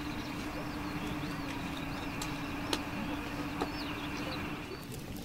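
A steady mechanical hum, sinking slightly in pitch, that stops near the end. Over it a bird gives a high chirping call again and again, and there are two sharp clicks.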